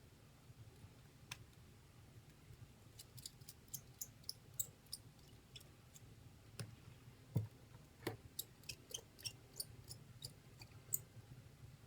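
Small sharp metal clicks and ticks, irregular, from a precision screwdriver and tweezers handling the tiny screws and parts inside an iPhone, with one duller knock about seven seconds in.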